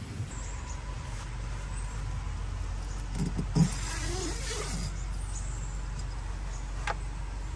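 A car on the move: a steady low rumble of engine and road noise, with a couple of short knocks a little past the middle.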